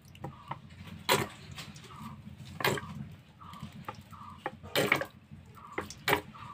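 Cooking oil poured from a plastic bottle into a hot iron karahi, splashing and dripping, with a few louder sharp sounds from the pour.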